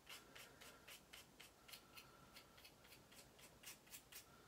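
Faint, quick scraping strokes of a pick tool shaving powder off a soft pastel stick, about three to four strokes a second.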